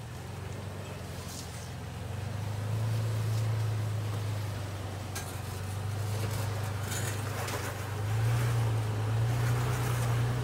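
Toyota FJ Cruiser's 4.0-litre V6 running at low revs as it crawls over rocks, a steady low hum that grows louder a couple of seconds in and rises slightly in pitch near the end as throttle is added.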